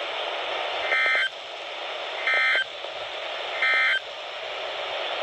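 Three short buzzy data bursts of the Emergency Alert System SAME end-of-message code, evenly spaced about a second and a third apart, over steady weather-radio static: the signal that the warning broadcast has ended.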